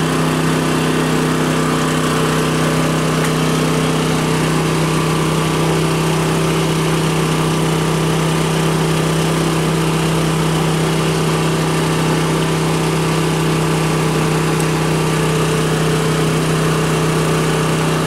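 Champion 3500-watt dual fuel inverter generator's single-cylinder engine running steadily on propane. Its note shifts slightly about four seconds in.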